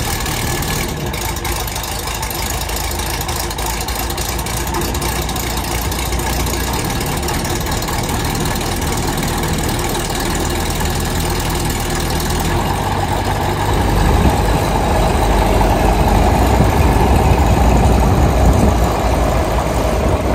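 Rotax 912ULS four-cylinder horizontally opposed aircraft engine of a Van's RV-12 running at idle with the propeller turning, just after being started for the first time. The engine note is steady and gets louder about two-thirds of the way in.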